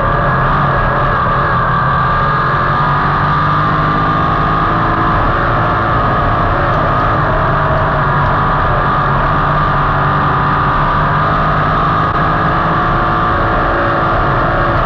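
Sprint car V8 engines running hard at racing speed: a loud, unbroken drone whose pitches rise and fall slightly as the cars work around the track.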